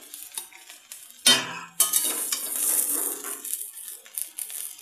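A metal spoon scraping and scooping okra stir-fry out of a hot kadai, with a sharp metal clank about a second in. Scraping and a steady sizzling hiss from the hot pan follow.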